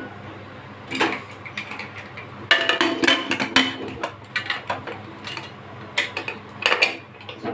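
Metal clanks and clicks of an aluminium pressure cooker's lid being set on and locked shut, with the whistle weight fitted onto its vent. There is one click about a second in, a burst of ringing clanks a little later, and more knocks near the end.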